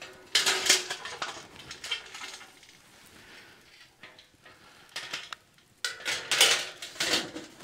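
Thin sheet-metal panels of a cone-shaped campfire oven clanking and scraping against each other and the tripod as the two halves are closed together. The clatter comes in a few bursts: one about half a second in, smaller knocks around two seconds, and the loudest run of clanks at about six to seven seconds.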